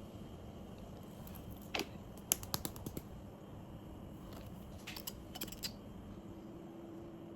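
A few light, sharp clicks and taps: a single one, then two short quick clusters, over a steady low hum.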